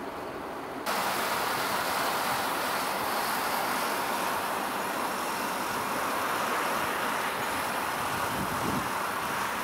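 Steady hum of city traffic noise, which steps up abruptly to a louder level about a second in.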